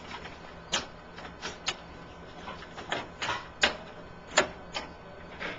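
Irregular sharp clicks and knocks of parts and latches being handled inside a Lexmark Optra T614 laser printer during a fuser cartridge replacement. There are about a dozen, with the loudest pair a little past the middle.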